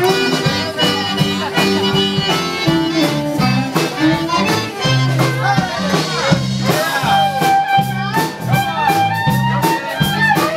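Live Cajun band playing dance music, accordion over a steady bass and drum beat, with crowd chatter underneath.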